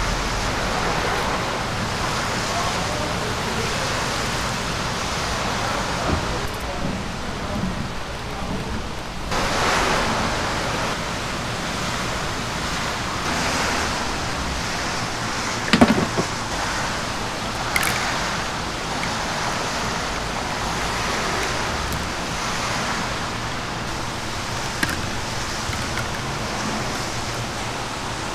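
Steady hissing ambience of a busy street-food stall, with indistinct background voices and occasional small clinks; one sharp clank about halfway through.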